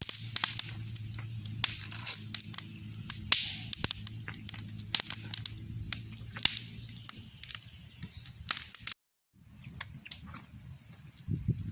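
Steady high-pitched insect drone outdoors, with scattered short clicks and a low steady hum through the first two-thirds. The sound cuts out briefly about nine seconds in, then the insect drone returns.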